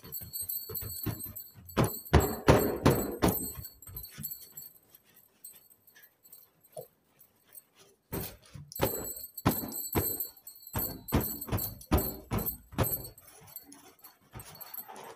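Hands rubbing and squeezing an inflated latex balloon, its skin squeaking and rubbing in irregular bouts, with a lull of a few seconds in the middle.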